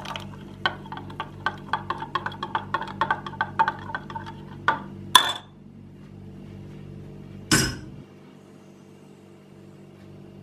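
Metal spoon stirring instant coffee and chocolate powder with a little water in a glass, clinking quickly against the sides. Two louder clinks come about five seconds in, then a single heavier knock a couple of seconds later, and it goes much quieter.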